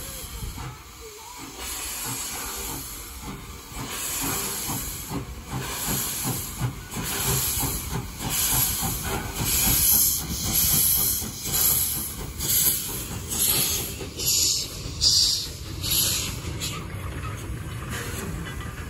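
Steam tank locomotive pulling a train away from a standstill: hissing steam, then a rhythm of exhaust chuffs that quickens from about one a second to nearly two as it gathers speed. Near the end this gives way to the steady sound of the train rolling.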